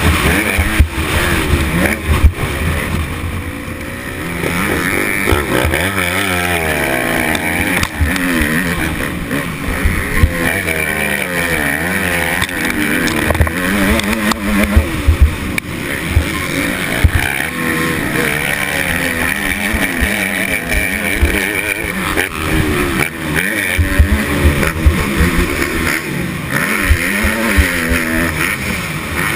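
Motocross bike engine heard from the rider's helmet, revving up and falling off again and again through the lap, with heavy wind buffeting on the microphone and occasional sharp knocks.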